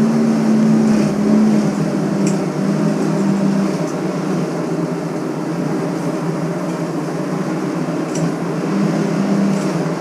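A steady mechanical hum with a low drone, a little stronger in the first few seconds and again near the end, with a couple of faint clicks.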